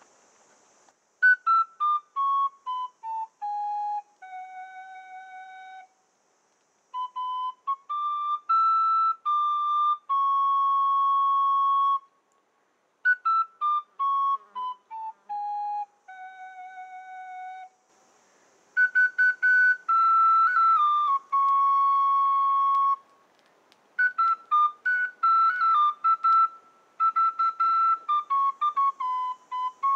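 A small flute playing a slow melody in phrases: runs that step down the scale and settle on long held notes, with short breaks between phrases.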